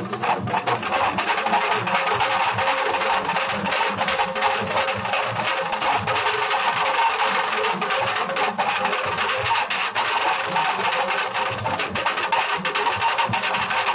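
Nashik dhol group playing: several large barrel dhols beaten with sticks in a fast, continuous rhythm, with deep booming strokes under sharp stick hits.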